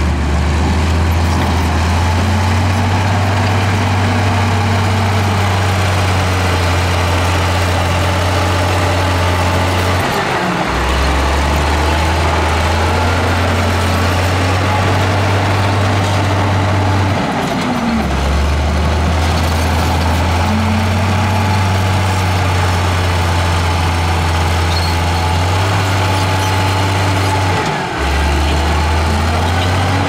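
Crawler bulldozer's diesel engine working steadily under load as it pushes soil. Its pitch rises and falls every few seconds as the machine drives, pushes and backs off.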